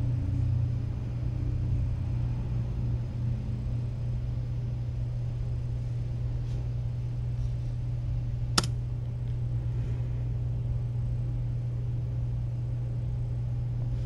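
Steady low hum, with one sharp click about eight and a half seconds in as the laptop's trackpad or keys are pressed.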